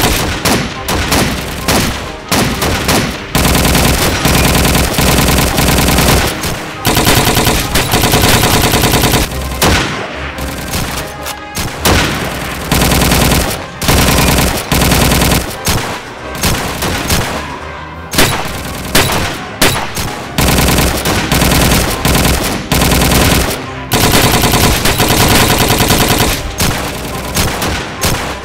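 Sustained WWII small-arms firefight from video-game sound effects: long bursts of rapid automatic fire mixed with single shots, broken by short pauses every few seconds.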